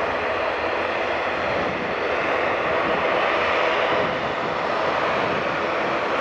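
Airbus A321-111 airliner's twin CFM56-5B turbofan engines running as the jet moves along the runway: a steady, even engine noise with no clear tones.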